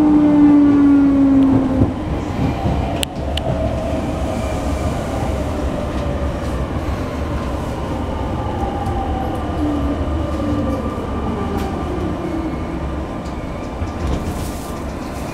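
Sotetsu 10000 series train with Mitsubishi IGBT-VVVF inverter, heard from inside the car as it brakes for a station: several whining inverter tones fall steadily in pitch as the train slows, over a steady rumble of wheels on the rails. One sharp click about three seconds in.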